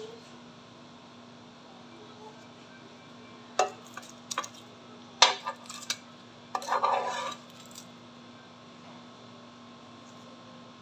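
Metal kitchen tongs clinking against a white ceramic plate as fried rolls are set on it. There are a few sharp clinks between about three and six seconds in, then a short clatter about seven seconds in, over a faint steady hum.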